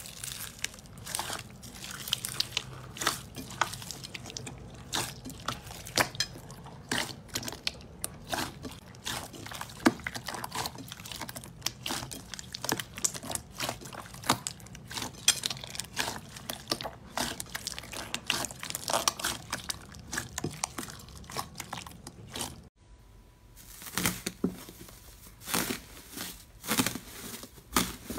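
Hands pressing and squishing pink crunchy slime studded with small beads: a dense, irregular run of crackles, pops and squelches. Near the end the sound changes to slime covered in gold and silver foil being pressed, the foil crinkling.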